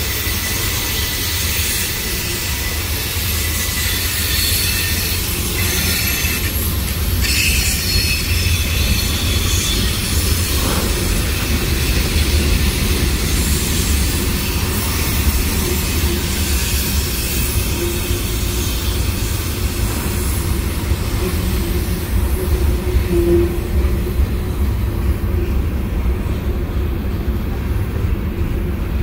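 Freight train cars (tank cars, then covered hoppers) rolling past close by: a steady rumble of steel wheels on the rails, with high wheel squeal on the curve that fades near the end.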